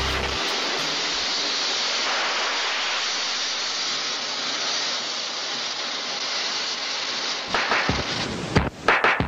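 Steady rushing hiss from a steam locomotive wreck. Near the end it gives way to a run of sharp knocks.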